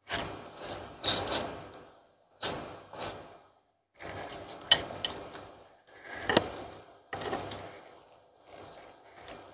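Close-miked eating of instant noodles with meatballs in broth: a string of short slurping and chewing noises with silent gaps between them.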